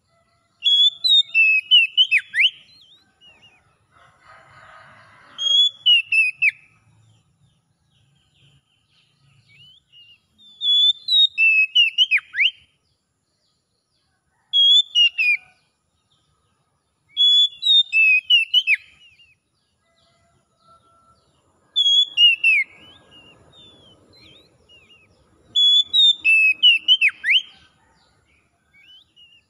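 Oriental magpie-robin (kacer) singing: about seven short phrases of clear whistles and sharply falling notes, each a second or two long and a few seconds apart.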